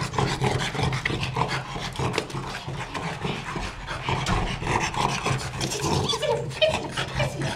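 French bulldog panting rapidly and noisily, a run of quick short breaths.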